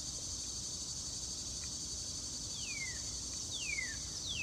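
A steady, high-pitched insect chorus, with a northern cardinal singing three whistled notes that slide down in pitch, spaced about a second apart in the second half.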